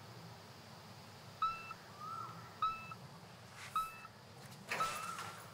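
A short, clear high tone repeated about every 1.2 seconds, starting about a second and a half in, with faint whooshes near the end.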